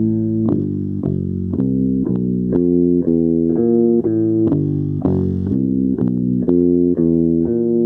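Instrumental music of plucked string notes, changing about twice a second in a steady rhythm.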